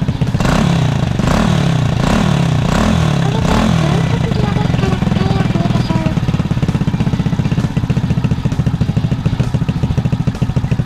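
Honda Thai Cub 100EX horizontal single-cylinder engine, taken out to 110cc and fitted to a Little Cub, running on its stock carburettor: blipped up and down about five times in the first few seconds, then settling to a steady, stable idle.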